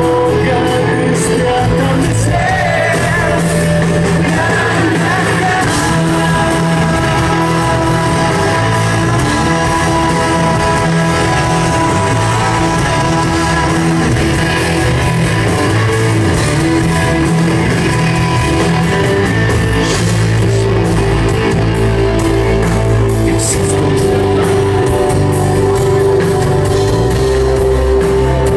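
Rock band playing live: a male lead vocal singing over acoustic guitar, bass and drums, heard from the audience in a large concert hall.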